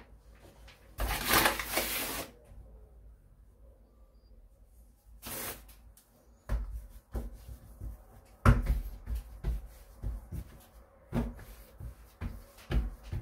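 Kitchen handling noises while a baking tray is dusted with flour. There is a rustle about a second in, and another shorter one in the middle, then a run of light knocks and clatters through the second half.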